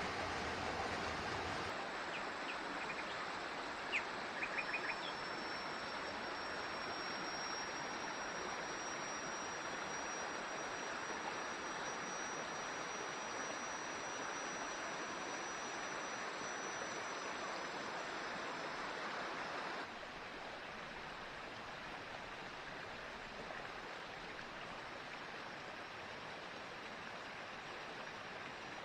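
Tropical forest stream running steadily, a constant rush of water. A few short chirps sound about four seconds in, and a thin high steady whine sits over the water until about twenty seconds in, when the sound steps slightly quieter.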